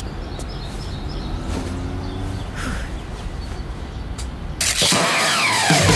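Steady low city street ambience with a traffic rumble. About four and a half seconds in, a sudden louder noisy sweep falling in pitch cuts in, and loud rock music with heavy bass starts near the end.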